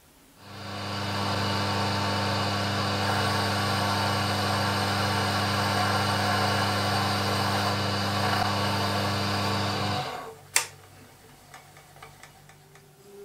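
Axminster CO micro lathe running: the motor and spindle come up to speed within about a second, run at a steady speed, then cut out about ten seconds in. A sharp click and a few light taps follow.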